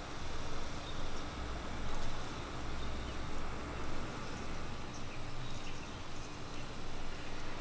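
Outdoor ambience: a faint high insect trill over a low rumble of wind on the microphone, which eases about halfway through.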